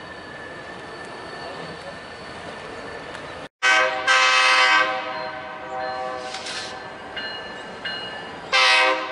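BNSF diesel locomotive's air horn sounding: a short blast and then a long one about four seconds in, and another short blast near the end, each a loud chord of several tones. Before the horn there is a steady background hum, and the sound drops out briefly just before the first blast.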